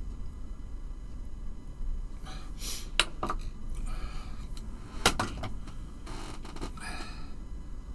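Handling of small plastic model parts and tools on a work surface: rustling and light handling noise, with two sharp clicks or taps about three and five seconds in.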